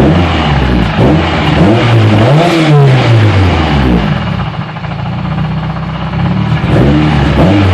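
Hyundai Tiburon engine revved up and back down over about three seconds, settling back to running, then revved briefly again near the end.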